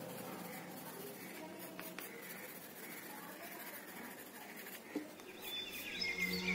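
Faint scratching of a pencil stroking across paper as tree foliage is shaded. Music fades in near the end.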